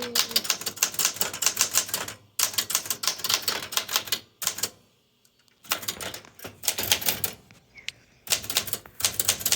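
1968 Smith-Corona Super Sterling manual typewriter being typed on: fast runs of key strikes in bursts. There is a short pause about two seconds in, a longer gap in the middle, and another short pause near the end.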